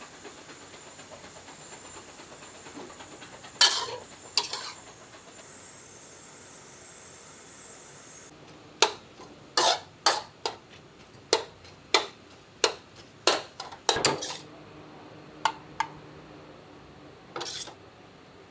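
Metal spatula clanking and scraping against a wok while stir-frying diced meat, over a steady faint sizzle. Two clanks come about four seconds in, then a quick run of about ten from about nine to fourteen seconds, and a few more near the end.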